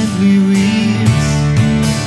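Band music with guitar, playing steadily.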